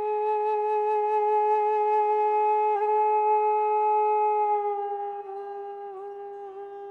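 Background instrumental music in an Indian classical style: one long held melodic note that dips slightly in pitch and level about five seconds in, then wavers with small ornaments.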